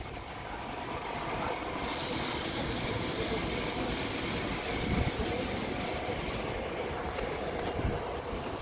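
Busy city street ambience: a steady wash of road traffic noise.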